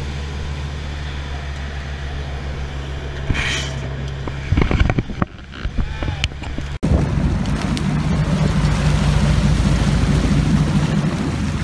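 Fishing boat's engine running steadily under way, a low drone with wind and water rushing past. A few loud irregular knocks come about halfway through. The sound then breaks off sharply, and a similar drone carries on with more water and wind hiss.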